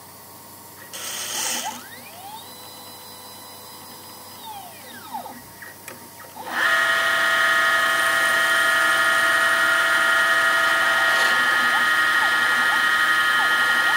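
Homemade CNC lathe at work: stepper motors whine in rising and falling sweeps as the axes move, with a brief hiss about a second in. At about six and a half seconds a spindle motor starts and runs with a loud, steady whine of several tones, while short stepper sweeps carry on underneath.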